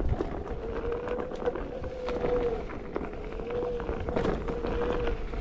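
Onewheel electric board's hub motor whining as it rides a dirt trail, one thin tone that wavers in pitch with speed, over a low rumble of the tyre on the ground and scattered clicks from twigs and debris under it.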